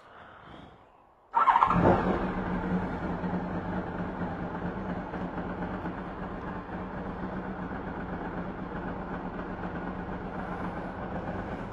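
Motorcycle engine starting about a second in, briefly loudest as it catches, then settling into a steady idle.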